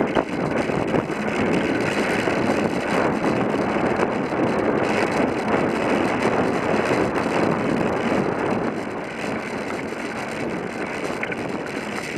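Bicycle rolling over a gravel path: a steady crunch and rattle of the tyres and frame, with wind buffeting the mounted camera's microphone. It eases a little near the end.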